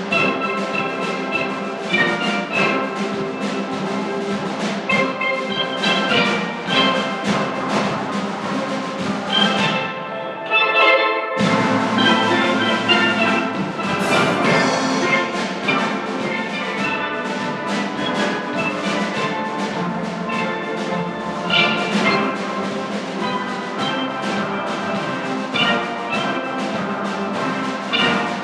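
Steel drum band playing: many steelpans sounding melody and chords over a steady rhythm. About ten seconds in the low parts drop out for a moment, leaving the higher pans alone, then the full band comes back in.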